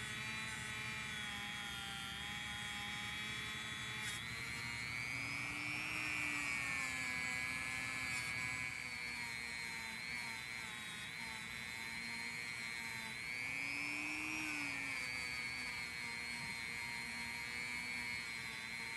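Handheld rotary tool running steadily with a polishing wheel, buffing a screwdriver's steel shaft and brass ferrule. Its high whine rises and dips in pitch twice as the work is pressed against the wheel.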